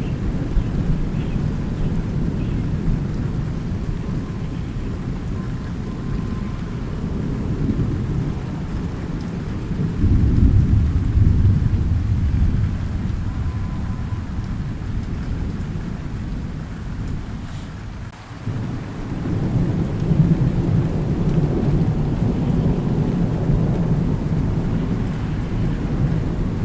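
Thunderstorm with steady rain and rolling thunder: a low rumble that swells about ten seconds in, eases briefly near eighteen seconds, and builds again after twenty seconds.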